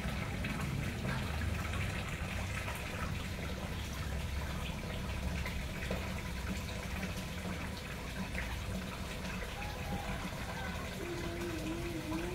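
Water pouring from a spillway into a garden fish pond, a steady splashing. Near the end a faint wavering tone comes in over it.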